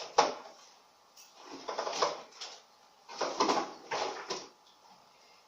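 Rummaging through household things: a sharp knock about a quarter second in, then three bouts of rustling and clattering as items are moved about.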